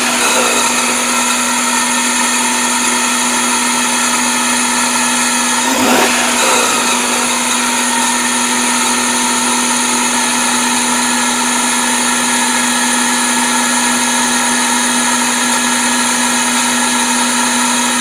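1997 Toyota Camry four-cylinder engine idling steadily with a whine, heard at the opened air box. The owner's intermittent 'wumpa wumpa' mystery noise is only very subtle here; he suspects it is vacuum-related, with the idle air control valve as the suspect.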